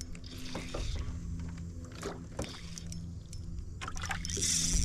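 Steady low hum of a boat's motor, with scattered light clicks and knocks and a short hiss near the end.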